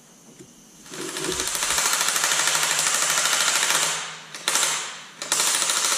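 Impact wrench hammering in quick, even rattling blows: one run of about three seconds, a short blip, then another run starting near the end, as parts are fastened to the front of a Detroit 3-53T diesel engine block.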